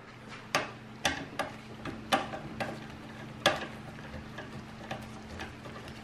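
Irregular light clicks and taps of a screwdriver and hands working on a dishwasher's motor and wiring. There are about seven sharp ones in the first three and a half seconds, then only faint ones, over a steady low hum.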